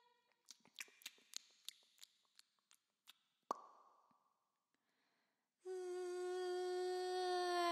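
A woman humming: a run of quick, irregular sharp clicks, then one louder pop about three and a half seconds in. After a short pause she hums one steady, low held note, starting a little past five and a half seconds.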